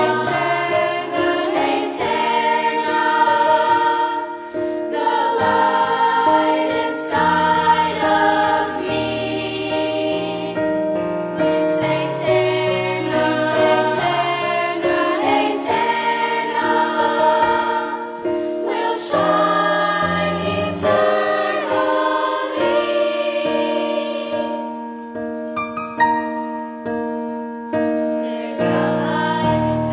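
Middle-school chorus singing a choral song with piano accompaniment, voices holding sustained notes over changing bass chords.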